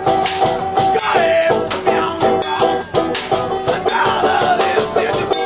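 Live band playing an instrumental passage: a banjo picking quick notes over drums.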